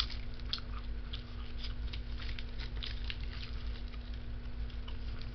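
A person chewing close to the microphone: irregular small wet clicks and crackles of the mouth, with a steady low hum from a running box fan underneath.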